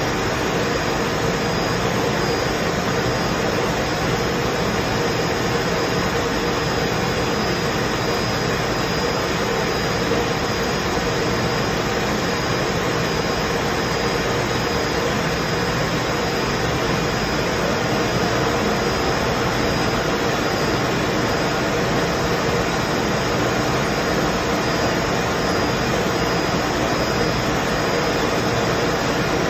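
Blown-film plastic bag machine running steadily: an even rush of machine noise with a few constant hums, unchanging throughout.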